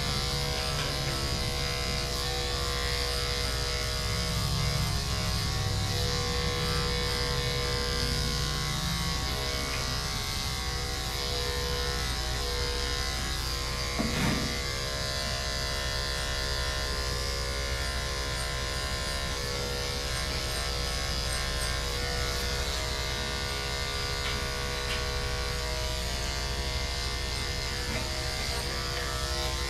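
Electric dog grooming clippers with a 7 blade running steadily, a constant buzzing hum. A brief bump sounds about 14 seconds in.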